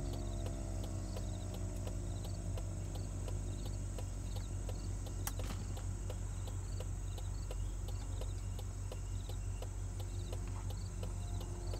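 Federal Signal Thunderbeam (RSH-10) rotating warning siren winding down: its falling tones fade out within the first couple of seconds. Then insects chirp in a steady rhythm of about three a second over a steady low rumble, with a single sharp click about five seconds in.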